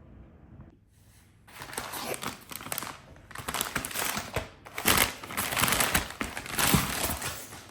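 Packaging crinkling and rustling in irregular bursts as a parcel is unwrapped, starting about a second and a half in.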